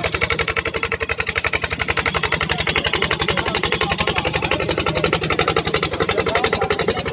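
Boat engine running steadily at speed, with a fast, even chugging pulse.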